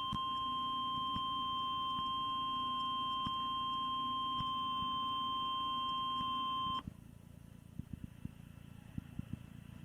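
Emergency alert attention signal: a single steady high-pitched tone a little above 1 kHz, the weather-radio style 1050 Hz warning tone, with a low hum under it. It cuts off abruptly about seven seconds in, leaving faint hiss and a few soft clicks.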